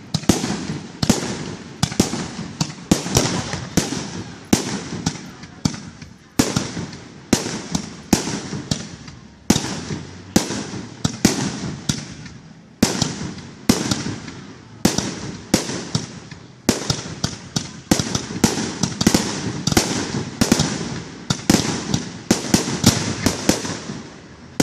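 Fireworks going off in a continuous rapid series of sharp cracks and bangs, about two or three a second, each with a short crackling tail.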